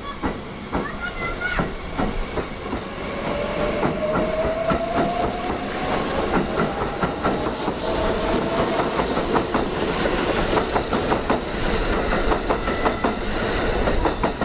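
Kintetsu 80000 series Hinotori electric train pulling out and gathering speed past the platform. Its traction motors give a whine that rises in pitch, and its wheels click over the rail joints.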